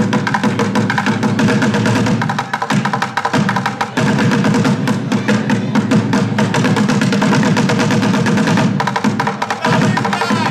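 Bucket drumming: drumsticks beating fast, dense rhythms on upturned plastic buckets and a metal trash can, easing off briefly twice.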